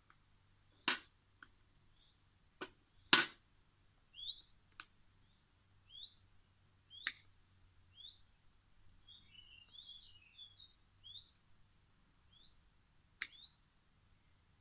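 Sharp clicks and snaps from a hand tool working on the end of a power cable, a few seconds apart, the loudest about one and three seconds in. Between them a small bird chirps repeatedly, with a short burst of chattering about two-thirds of the way through.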